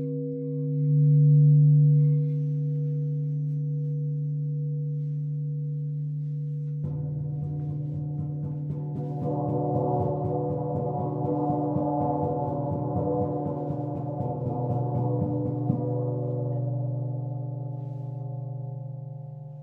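Crystal singing bowls ringing in steady, held tones. About seven seconds in a gong enters and builds into a shimmering wash of many overtones, then fades away near the end.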